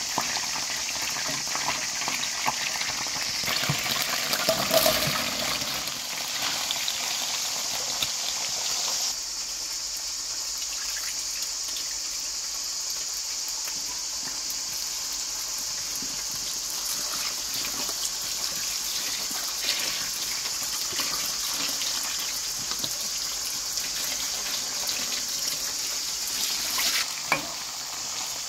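Oil sizzling in a frying pan as pieces of chicken fry, a steady hiss with a few spatula clicks and scrapes. The sizzle drops a little about nine seconds in, and a sharp knock comes near the end.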